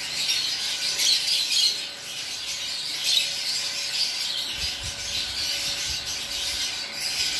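Many small birds chirping constantly, a dense overlapping chatter with no pause.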